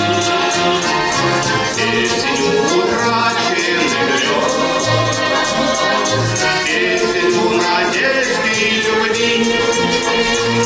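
Instrumental song intro: sustained melody over bass notes and a steady high percussion tick about four times a second.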